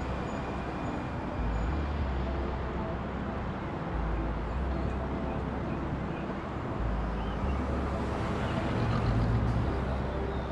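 Steady city traffic noise over a deep bass line from background music, the bass note changing every second or two.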